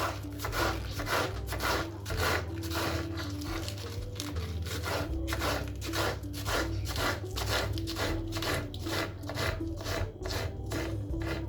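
Repeated rasping, scraping strokes at about three a second, steady throughout, over soft background music.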